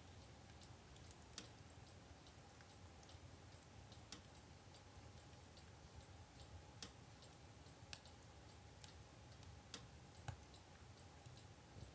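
Faint, irregular little clicks of a cat licking and grooming a dog's ear, over near-silent room tone.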